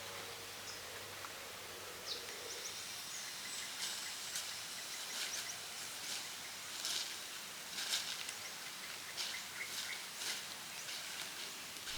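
Rural outdoor ambience: a steady faint hiss with scattered short, high-pitched chirps and ticks from about two seconds in.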